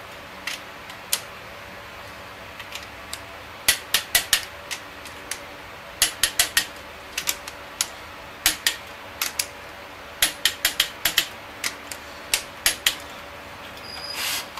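Ratcheting clicks of a click-type torque wrench tightening connecting-rod nuts on a Chevy 454 big-block bottom end. The clicks come in short, quick runs of a few at a time, with pauses between runs.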